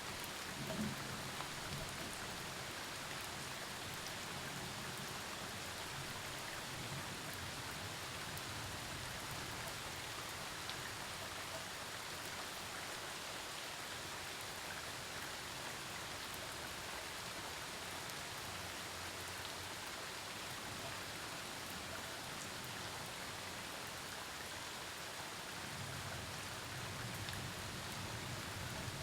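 Steady rain falling during a storm, an even hiss of rainfall with scattered drops striking surfaces, a little heavier near the end.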